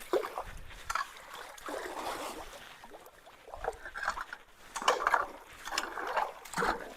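Creek water trickling and sloshing at the mouth of a culvert, with irregular splashes about once a second.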